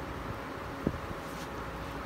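Steady hiss from a covered pan of chicken and sauce simmering on low heat, with one short thump just under a second in.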